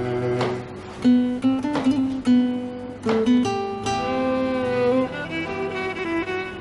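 Background score music: a slow melody of plucked string notes with some notes held longer.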